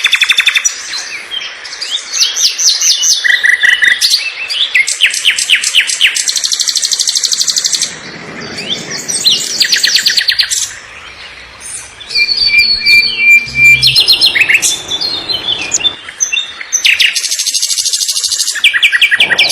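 Several different songbirds chirping and singing, in a string of short recordings that change abruptly every few seconds. It includes fast trills of rapidly repeated high notes and, about two-thirds of the way in, a held whistled note.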